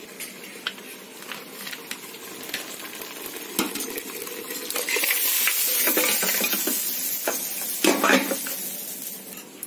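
Hot oil-fried masala sizzling as boiled trotters (paya) and their stock are tipped in from a pressure cooker, with clinks and knocks of metal pots and spoon. The sizzle swells about halfway through and dies down near the end.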